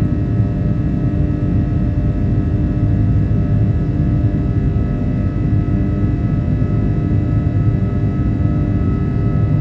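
Jet airliner cabin noise during the climb after takeoff: a loud, steady rumble of engines and airflow with several steady whining tones over it.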